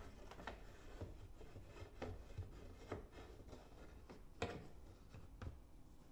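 Faint scattered knocks and rubbing of a thin wooden toe-kick panel being set and pressed into place against a cabinet base. The sharpest knock comes a little past the middle.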